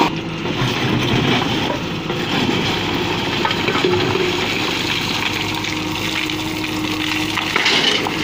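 JCB backhoe loader's diesel engine running under load while its backhoe bucket digs into a pile of broken stone, rocks scraping and clattering. Near the end the stone pours from the bucket into the steel bed of a tipper lorry with a rushing clatter.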